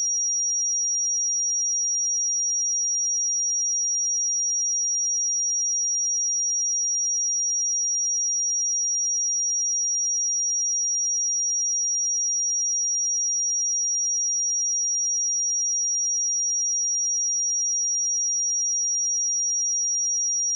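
Steady pure sine-wave test tone at 5703 Hz, a single unchanging high-pitched whistle used to test speakers and headphones.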